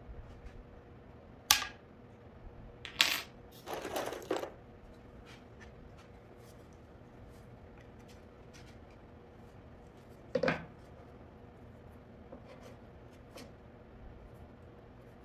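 Wooden drawer-box boards handled on a worktable: a sharp clink about a second and a half in, a short burst of knocks and clatter around three to four seconds, and a single knock near ten and a half seconds, over a faint steady hum.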